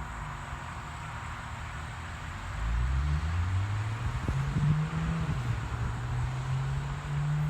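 An engine running over a steady hiss; about two and a half seconds in its pitch rises and it grows louder, then holds at the higher pitch.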